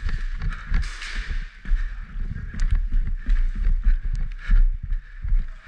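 Running footsteps of a player carrying a body-worn camera: rapid, irregular thuds on wooden stairs and then a concrete floor, with gear and clothing rubbing against the microphone and a couple of sharp ticks.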